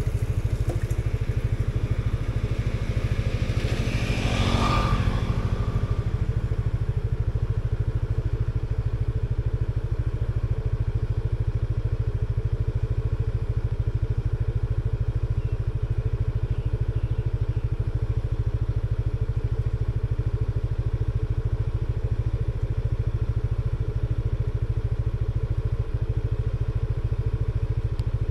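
Motor scooter engine idling steadily while stopped. A brief louder swell of sound passes about four to five seconds in.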